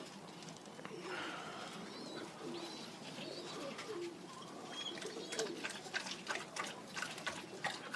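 Pigeons cooing, with a few higher chirps early on and a run of sharp clicks and taps from about five seconds in.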